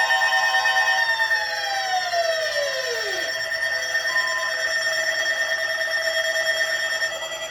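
Weather radio's alert alarm sounding for a Winter Storm Warning: loud, steady electronic tones. About a second in, one tone slides down in pitch over two seconds, and the rest hold until they cut off near the end.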